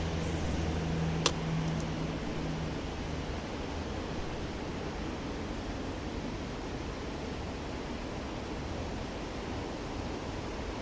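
Steady rushing of a river in flood. A low hum fades out after about three seconds, and there is one sharp click about a second in.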